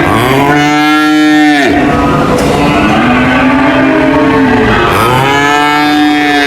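Cows mooing: long, loud moos that rise and fall in pitch, following one another throughout, with some calls overlapping at different pitches.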